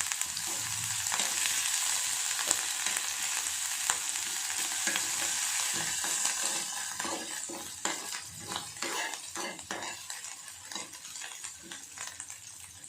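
Grated ginger sizzling in hot desi ghee in a frying pan, with a spatula stirring and scraping against the pan. The sizzle is loudest for the first six seconds or so, then dies down while the stirring clicks and scrapes go on.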